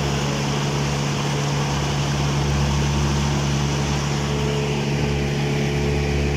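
Outboard motor of a fiberglass panga running steadily at speed, with water spray rushing along the hull.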